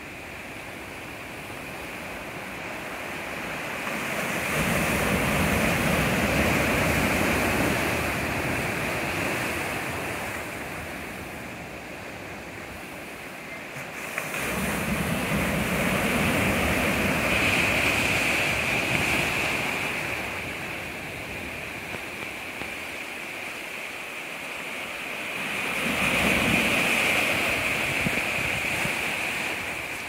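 Small ocean waves breaking and washing up over a stony beach, the surf swelling three times, about every ten seconds, with a softer steady hiss of water between the breakers.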